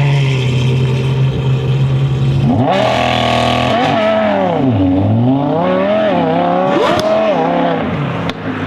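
Audi R8 V10 Performance's V10 running through an aftermarket exhaust. A steady engine note holds for the first couple of seconds, then a revving engine note comes in, its pitch dropping and climbing again, with a sharp crack about seven seconds in.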